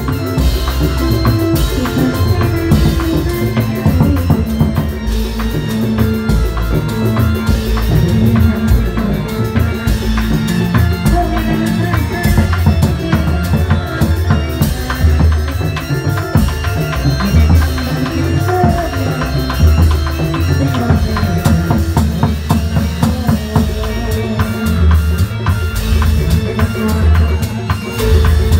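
Loud live music of a reog Indramayu troupe's ensemble, with steady drumming and heavy bass-drum beats under sustained melodic tones.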